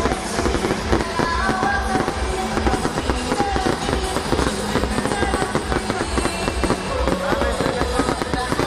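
Fireworks banging and crackling over loud music played through a sound system, with a steady beat.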